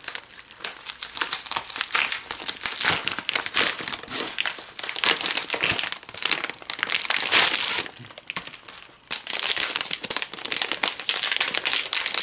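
Metallized anti-static bubble bag crinkling and crackling as it is handled and opened, with a short lull about eight seconds in.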